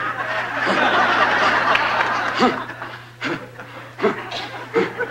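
Sitcom studio audience laughing at a punchline. The laughter is dense at first, fades over the first two to three seconds, and thins to a few scattered short laughs.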